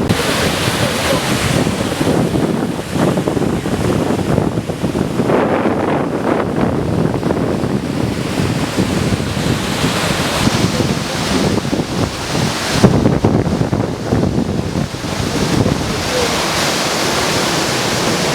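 Wind buffeting the microphone in gusts, a loud rumbling rush that swells and dips throughout.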